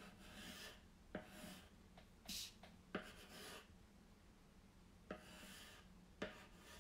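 Paint pen tip scratching across a laminate drawer front in about five short strokes, each starting with a light tap as the tip touches down. Faint.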